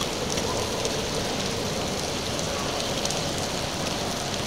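Steady rain hissing, with a few faint scattered ticks of drops.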